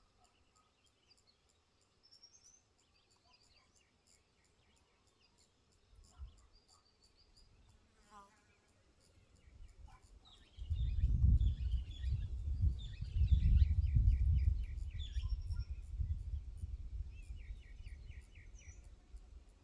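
Wild birds chirping and trilling, some in quick repeated trills, over a faint, steady, rapid insect ticking. About halfway through, a low rumble comes in and becomes the loudest sound, then slowly fades.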